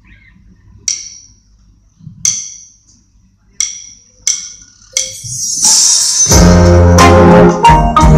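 A drummer's count-in of sharp ringing percussion clicks, three slow then two quicker, then a rising cymbal swell, and about six seconds in the rock band comes in loud with organ, bass and drums at the start of the song.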